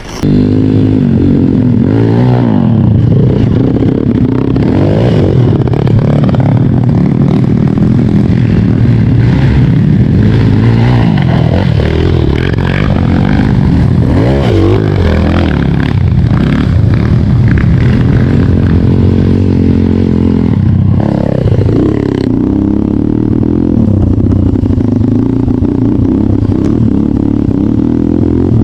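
Trail motorcycle engine running hard under load on a rough track, its pitch rising and falling as the throttle is opened and closed, with a marked rev-up about three-quarters of the way through.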